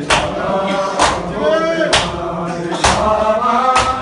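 Male voices chanting a noha (Shia mourning lament) with synchronized matam, many hands slapping bare chests together about once a second in time with the chant.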